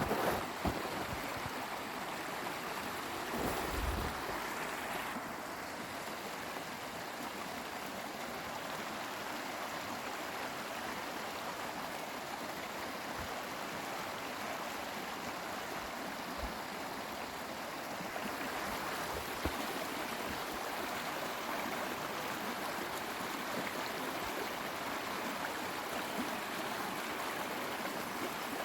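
Rain-swollen stream running steadily, an even rushing of water, with a few low wind bumps on the microphone in the first few seconds.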